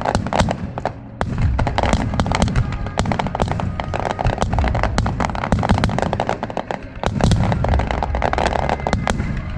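Aerial fireworks bursting in a rapid, unbroken barrage: a dense run of sharp cracks over heavy low booms, growing louder about a second in and again near seven seconds in.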